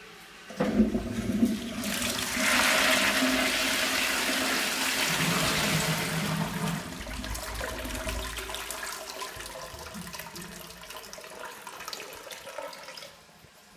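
High-level toilet with a Dauntless cistern flushing: a couple of clunks as the flush is worked, then a loud rush of water into the pan that tapers off over several seconds and stops shortly before the end.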